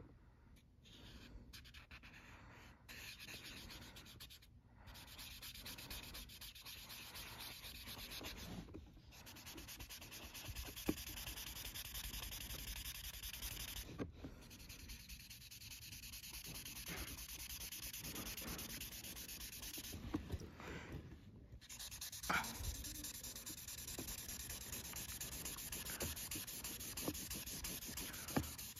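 Imagine Ink mess-free marker scrubbing back and forth on a coloring book page: faint, continuous scratchy rubbing broken by a few short pauses.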